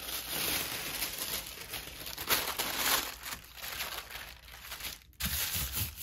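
Thin tissue paper crinkling and rustling as it is handled and laid over a gel printing plate, with a few soft thumps near the end as hands press it down onto the plate.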